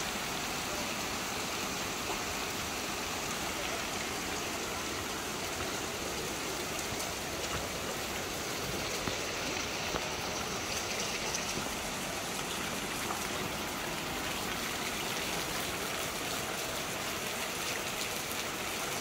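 Steady rushing of flowing water.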